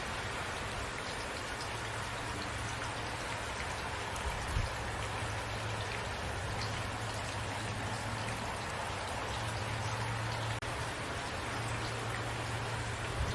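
Steady rain falling, an even hiss with scattered drops ticking, over a low rumble that fades in and out. One brief knock about four and a half seconds in.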